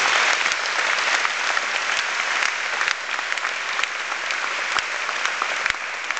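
Audience applauding: a dense patter of many hands clapping, with a few sharper claps close by, easing off slightly about halfway through.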